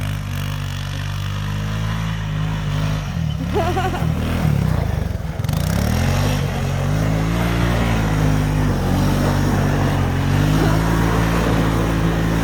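Quad (ATV) engine running under throttle; its revs dip and climb again about four seconds in, then hold steadier and a little louder.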